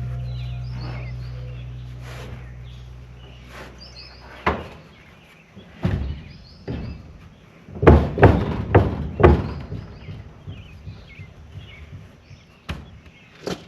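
Background music fading out, then birds chirping and a series of irregular knocks, several in quick succession about eight to nine seconds in.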